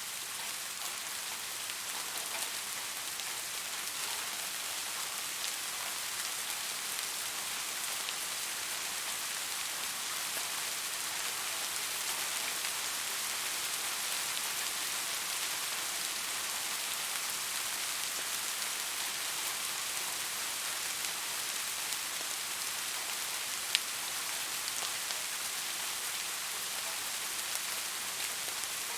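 Steady rain falling and pattering on a surface, an even hiss with one sharp drop-like click about 24 seconds in.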